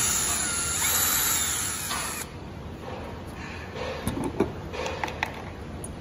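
Cordless drill-driver spinning with a whining motor for about two seconds, backing a screw out of a floor scrubber's control panel. A few light clicks and knocks follow.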